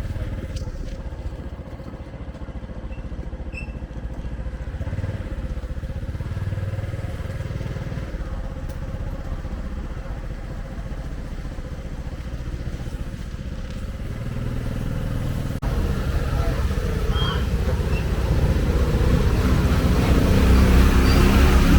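Motorcycle engines running in road traffic. The sound changes abruptly about two-thirds of the way through, then grows louder toward the end.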